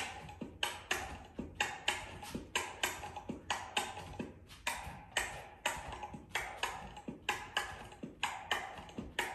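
A steady percussion beat of sharp, clicking strikes, about three a second, kept as the count for hula steps.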